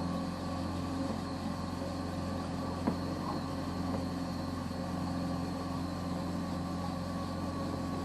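Boat's outboard motor running steadily, an even hum, with one short click about three seconds in.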